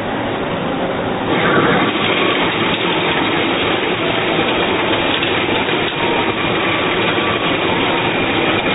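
Doosan Puma GT2100M CNC turning center running, a steady, noisy machining sound that gets louder about a second and a half in.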